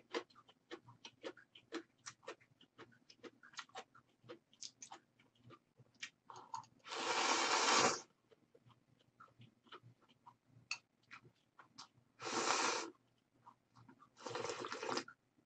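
Close-miked mukbang eating sounds: steady small chewing and mouth clicks, broken by three loud slurps of ramyeon noodles and broth, each about a second long, the first about seven seconds in and two near the end.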